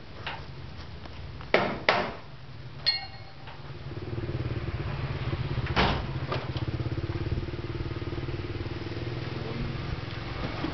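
A few sharp metallic knocks, one ringing briefly like a clink, then about four seconds in a motor starts running with a steady low hum and a fast pulse.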